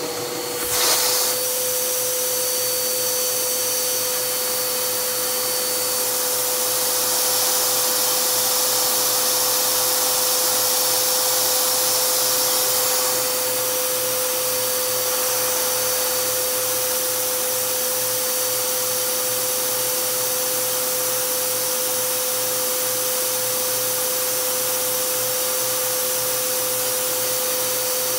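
Vacuum cleaner running with a steady whine and rushing air, its nozzle sucking on a LEGO vacuum engine and driving it. There is a short knock about a second in, and the rush of air gets louder for several seconds midway through.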